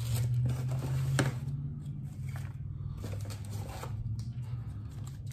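Packaging being handled while items are taken out of a camera box: rustling and a few sharp clicks, busiest in the first second or so, then fainter, over a steady low hum.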